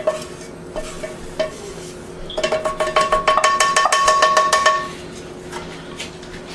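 A metal spoon clinking in a pan, then scraping hard against it for about two and a half seconds in a rapid, ringing chatter as the roasted coconut and spice mix is scraped out.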